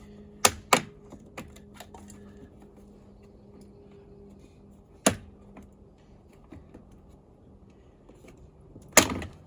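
Sharp plastic clicks and snaps from prying trim pieces off a Ford Excursion's interior door panel: two close together near the start, one about halfway, and a louder one near the end, with light ticking between.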